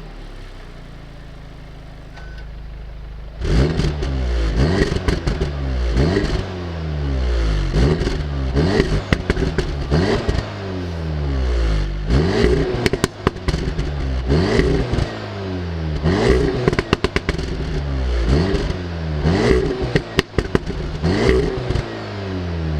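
Audi S3's turbocharged 2.0 TFSI four-cylinder exhaust idling for about three seconds, then revved in repeated short blips, about one every one to two seconds. Sharp crackles and pops come from the exhaust as each rev drops.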